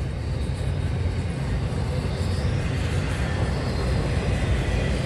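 Intermodal freight train rolling past: double-stack well cars and spine cars carrying highway trailers, with a steady noise of steel wheels on rail.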